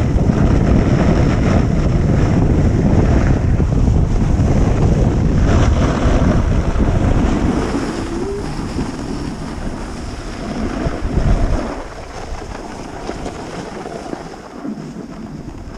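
Wind buffeting the action camera's microphone during a descent of a ski slope: a loud, rushing rumble that eases about halfway through, surges briefly near the end, then stays quieter.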